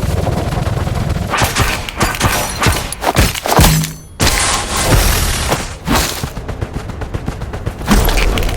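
Dense layered action sound effects: sharp shots and heavy booms over music, with a short gap about four seconds in and a rapid run of machine-gun-like shots near the end.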